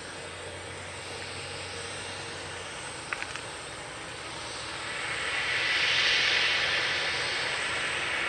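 Jet engines of a Boeing 737-300 airliner running as it moves past. The hiss swells to a peak about six seconds in, then eases a little. A short cluster of clicks comes about three seconds in.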